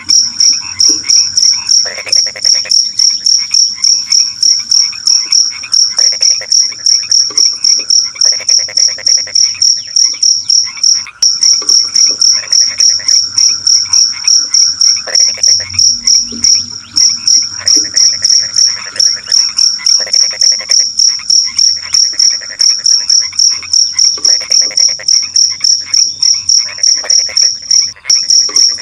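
A cricket chirps loudly at a high pitch in an even, rapid pulsing that pauses briefly a few times. Frogs croak in short repeated bursts underneath.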